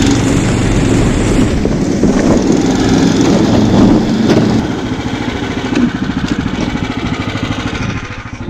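Snow Dog tracked machine's small engine running under load as it tows a sled across snow-covered ice, its sound easing off a little about halfway through.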